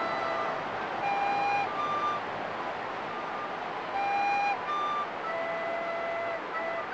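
A small ensemble of recorders playing slow, held notes together in pure, whistle-like tones, often two or three pitches sounding at once, over a steady background noise.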